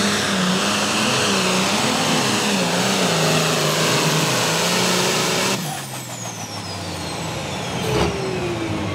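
Diesel pulling tractor's engine running hard under load, its pitch wavering up and down, then cutting off abruptly about halfway through. High whines fall away steadily after the cut-off, with a short sharp crack near the end.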